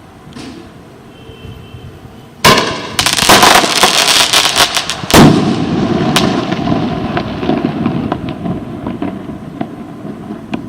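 Fogos Ouro TNT Glitter firework rocket going off. A sudden loud bang about two and a half seconds in is followed by dense glitter crackling. A second loud bang comes about halfway through, and the crackling then thins out to scattered pops.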